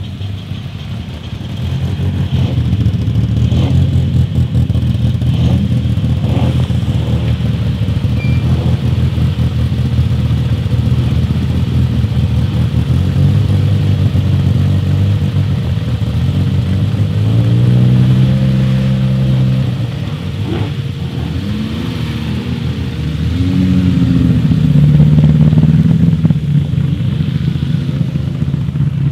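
Rally car engines running in the start queue, idling and briefly revved, the revs climbing and falling back twice in the second half.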